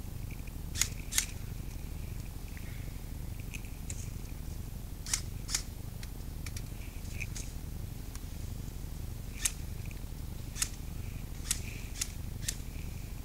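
Scattered single shots from airsoft guns: about nine sharp snaps at irregular intervals, a pair about a second in and others every second or so through the rest, over a steady low rumble.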